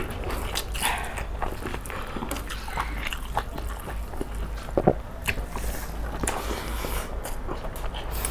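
Eating sounds: food being bitten and chewed, with scattered short clicks.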